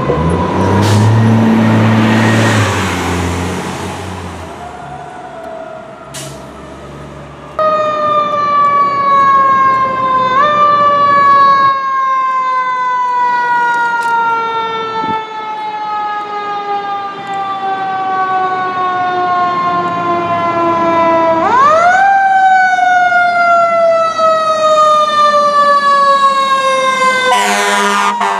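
Fire truck siren wailing, its pitch sliding slowly and steadily downward, then twice swept quickly back up and left to fall again. Deep horn blasts sound over the siren about a second in, and a short harsh blast comes near the end as the engine passes.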